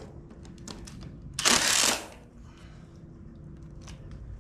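Hand tools working the last oil-pan bolt on a dirt-caked Chevy 283 V8 block: a few light metal clicks and one brief, loud rasp about a second and a half in, over a faint steady hum.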